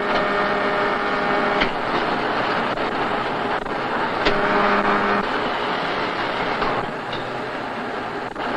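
Gear induction-hardening machine running: a steady rushing noise with a hum that switches on and off, and a sharp click every two to three seconds, three in all. It gets a little quieter near the end.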